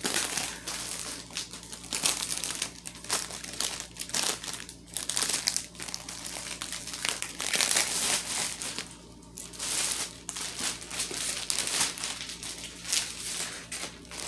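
Clear plastic packaging crinkling and rustling in irregular bursts as it is handled and unwrapped, with a brief lull about nine seconds in.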